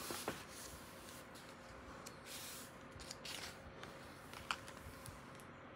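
Faint rustling and a few light clicks of paper pages being handled and turned in a hardcover art book, with a soft longer rustle a little after two seconds in.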